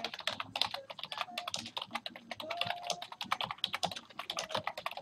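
Fast typing on a computer keyboard: a dense, continuous run of keystrokes, several a second.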